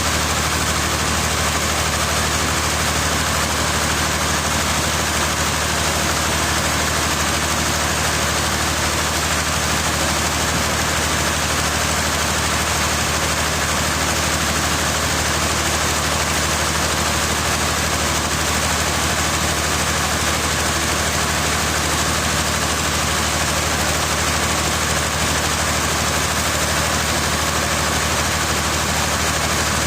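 A heavy engine running steadily at an even speed, with a constant low hum and noise that does not change.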